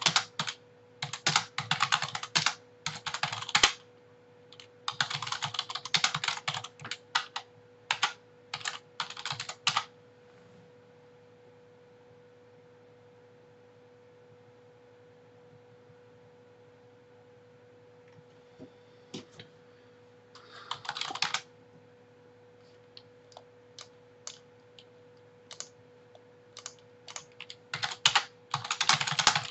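Typing on a computer keyboard in quick runs of key clicks, then a pause of several seconds with only a faint steady hum. Scattered single key presses and a short burst follow, and a fresh run of typing starts near the end.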